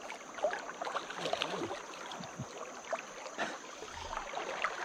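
Irregular small splashes over the steady rush of a shallow river current: a hooked rainbow trout thrashing at the surface while being played on a fly rod.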